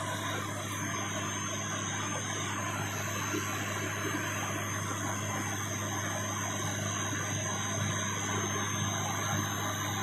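Steady cabin drone of a turboprop airliner's engines and propellers: a deep, even hum over a constant rush of airflow, with no change in pitch.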